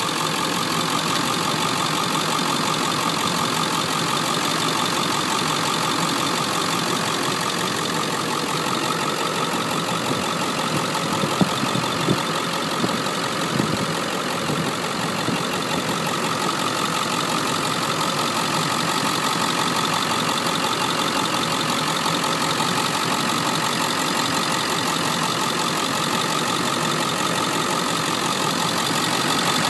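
Ford 7.3L Power Stroke turbo-diesel V8 idling steadily, with a few brief clicks about halfway through. It is running in dual-fuel mode on diesel and natural gas through a CNG conversion system.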